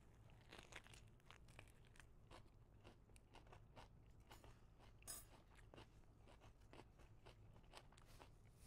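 Faint crunching and chewing as people eat raw leafy-green vegan wraps, with soft crunches scattered throughout and one sharper crunch about five seconds in. A low steady hum sits underneath.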